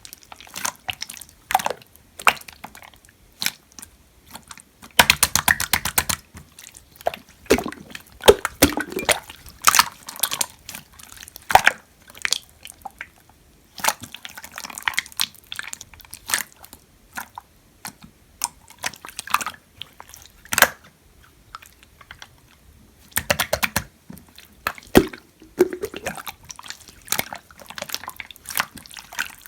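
Clear slime being squished, pressed and pulled by hand, giving wet clicks and air-bubble pops, with quick crackling runs of popping about five seconds in and again near the end.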